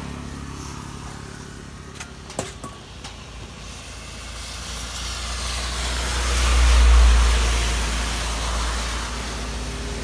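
A motor vehicle passing close by: a low engine rumble that swells to a peak about seven seconds in and then fades away. A few sharp clicks come just after two seconds in.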